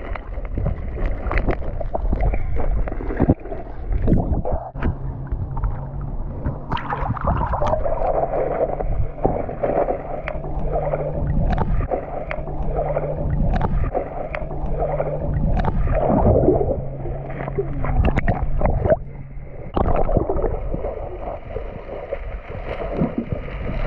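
Water heard underwater in a lake: muffled bubbling and gurgling as swimmers move about, with many scattered clicks and knocks. A steady low hum runs through the middle and stops a few seconds before the end.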